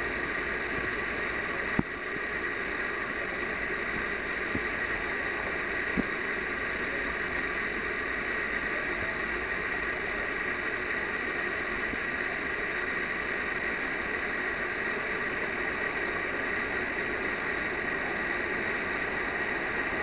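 Steady background hiss and hum with a constant high-pitched whine, from an unseen source; two faint clicks, about two and six seconds in.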